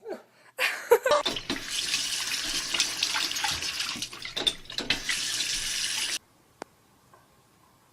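Water running hard, as from a tap, ending abruptly about six seconds in, with a few short pitched sounds near the start.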